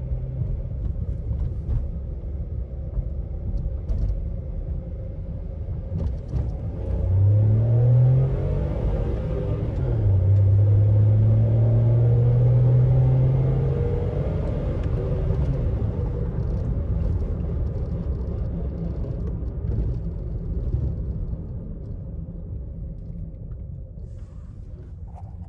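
VW Up! 1.0 MPI three-cylinder engine, its intake resonator removed, pulling hard from inside the cabin. The revs climb about seven seconds in, drop at a gear change, then climb again for about four seconds before easing back to a steady cruise.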